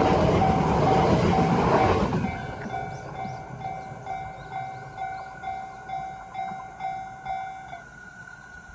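Train passing over a Japanese level crossing, its running noise loud for about two seconds and then fading away. The crossing's electronic warning bell keeps ringing its repeating two-tone ding at about two strikes a second, then stops near the end.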